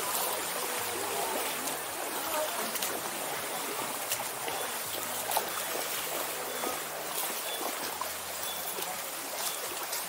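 Stream water running steadily, with a few faint clicks.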